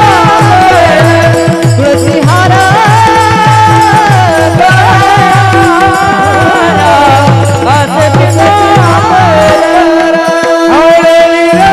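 Marathi devotional song (abhang) with a sliding, ornamented melody over a steady held drone and a regular drum beat. The drums drop out for a couple of seconds near the end, then come back in.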